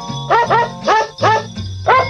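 Christmas music built from pitched dog barks: short bark notes land in a quick regular rhythm, about five in two seconds, over a steady bass accompaniment.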